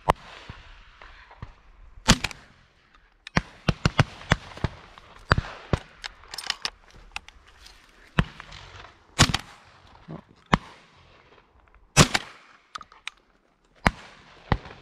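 More than a dozen shotgun shots. Some are loud and close, others fainter, and several come in quick clusters.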